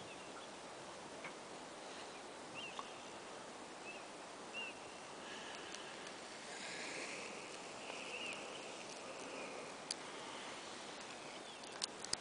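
Faint outdoor ambience over water, with a few short high bird chirps scattered through it and a couple of sharp clicks near the end.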